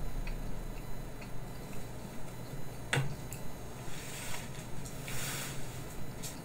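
Plastic lunchbox tray and lid being handled: a sharp click about three seconds in, a few lighter ticks, and brief light rustles of plastic.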